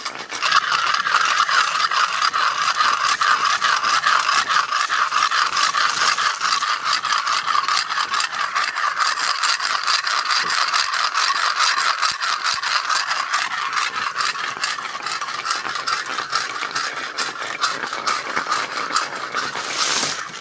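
Stones rubbed and ground against each other in a fast, continuous scraping rattle, the sound made to draw crabs out of their holes among the rocks.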